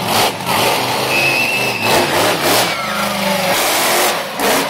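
A monster truck's engine revving up and down hard, its pitch climbing and falling, with several short, loud surges.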